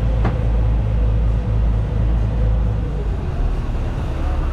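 Boat engine running with a steady low rumble and a faint steady hum, which fades about three seconds in as the rumble shifts slightly; one short click early in.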